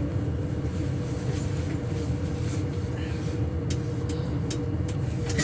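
Inside a moving Class 395 electric train: a steady low running rumble with a steady hum over it, and a few light clicks in the second half.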